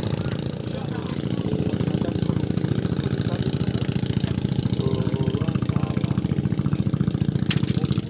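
A small engine running steadily at low speed, with a fast, even pulse.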